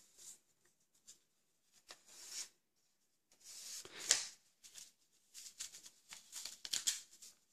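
Thin paper strip rustling and crinkling as it is handled and folded over by hand, in short scattered bursts that grow busier in the second half, with one sharp crackle about four seconds in.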